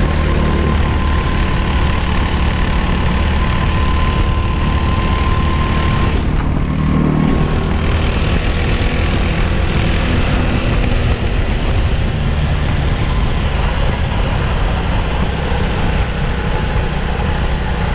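Racing kart engine running on track, heard from on board, loud and continuous. The engine note shifts about six to seven seconds in.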